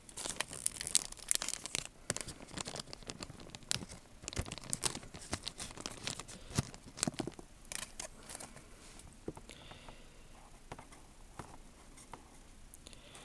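Fingers handling a small transistor-radio circuit board and its parts close to the microphone: a dense run of crackling, rustling clicks for about nine seconds, then only scattered faint ticks.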